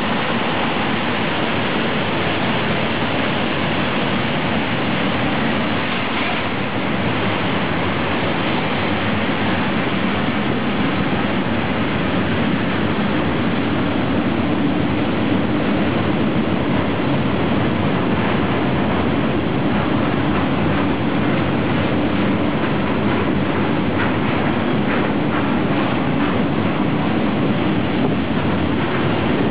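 Freight train wagons rolling past close by: a steady, loud noise of wheels on the rails. The wagons are loaded double-deck car-transporters, followed by timber and other goods wagons.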